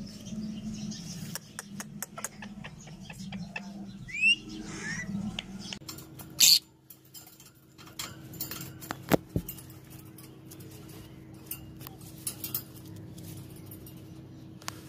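Caged parrots calling: two short whistled chirps from a yellow ringneck parakeet about four seconds in, then peach-faced lovebirds with a loud sharp chirp about six and a half seconds in and scattered brief chirps and clicks after it.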